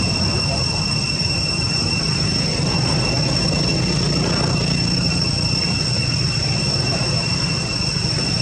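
Steady high-pitched drone of cicadas in the trees, one even tone with a fainter higher one above it, over a low rumble.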